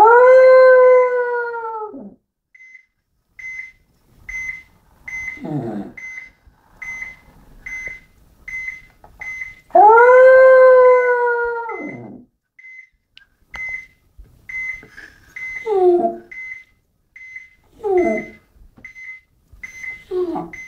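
Jack Russell terrier howling: two long held howls, one at the start and one about ten seconds in, with shorter falling whines and yelps between. A high electronic beep repeats a little under once a second throughout.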